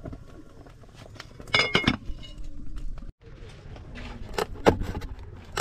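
Metal cookware and utensils clinking: a few sharp knocks with a short metallic ring about a second and a half in, then scattered lighter clicks and knocks.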